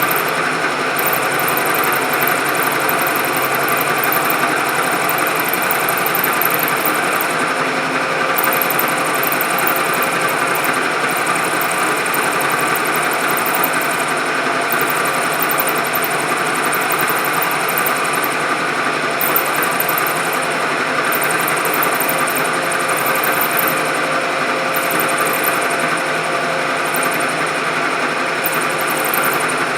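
Milling machine running steadily while it takes a cut, an even, continuous machining noise.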